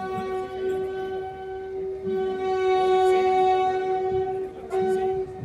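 A locomotive horn sounding one long steady single-tone blast, broken off briefly near the end and sounded again for a moment.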